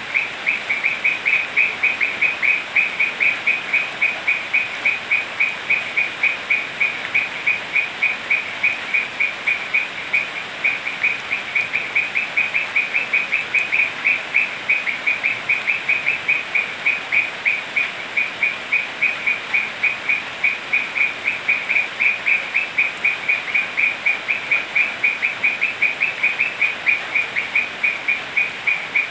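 A frog calling nonstop, short high notes in a fast, even series of about four or five a second, over a steady hiss of rain.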